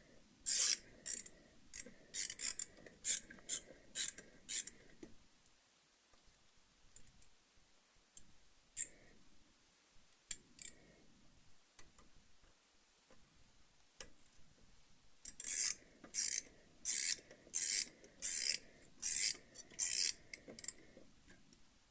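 Rhythmic scraping strokes on the motorcycle's rear brake caliper parts, about two a second, in two bouts of several seconds with a quiet pause and a few light clicks between.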